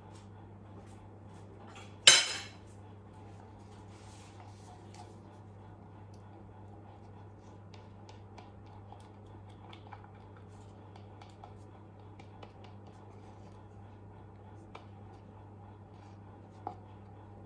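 A silicone spatula scraping jam out of a small bowl, with faint scattered clicks and scrapes. About two seconds in comes one sharp knock of a utensil against the dish that rings briefly, the loudest sound, and a smaller tap comes near the end.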